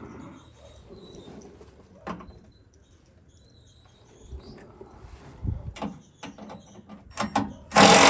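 Tools and metal parts being handled during installation: faint rustling, a sharp click about two seconds in, then a run of knocks and clicks from about five and a half seconds, ending in a loud metallic clank near the end.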